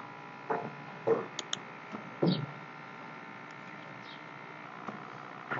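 Quiet background with a faint steady hum from the recording setup, broken by a few soft short noises and a light click about a second and a half in.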